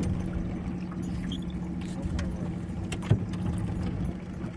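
A boat's outboard motor running steadily at a low, even speed while trolling, with light rattles and one sharp knock about three seconds in.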